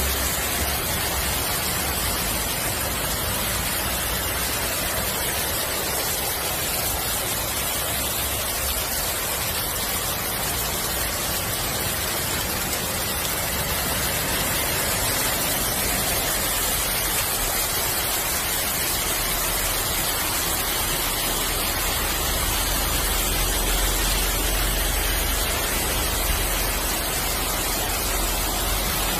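Steady rushing hiss of heavy rain and floodwater pouring along a street. A deeper rumble joins about two-thirds of the way in.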